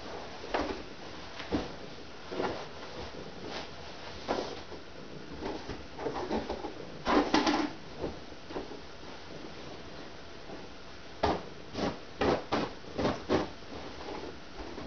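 Pillows and bedding being handled on a bed: scattered soft rustles and thumps, a louder flurry about seven seconds in as pillows are tossed into place, then a quick run of five or six soft thumps a few seconds later.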